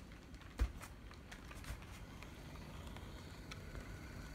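HO-scale brass model electric locomotive with a Canon EN22 motor running on the layout: scattered light clicks and one thump about half a second in, over a low rumble. A faint steady whine from the motor and worm drive comes in near the end.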